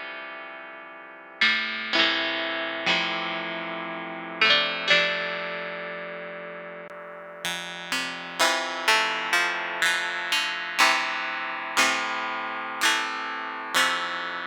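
Digital synthesizer notes played through a Strymon Iridium amp and cabinet simulator, a plucked, guitar-like tone with a sharp attack and a long decay. The notes are sparse at first and come faster, about one or two a second, from about halfway through.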